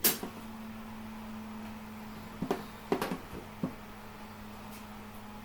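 Electric fan oven door shut hard with a loud bang, then the oven's fan running with a steady hum. A few light knocks follow about two and a half to three and a half seconds in.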